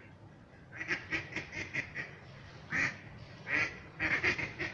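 Waterfowl calling: starting about a second in, a run of short rapid calls about five a second, then two longer single calls, then another rapid run near the end.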